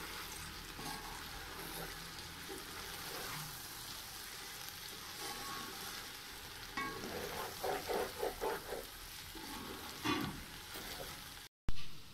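Okra, onions and masala sizzling in a metal pot as a wooden spoon stirs them gently, with a run of quick spoon taps and scrapes against the pot a little past halfway. A single loud knock comes near the end.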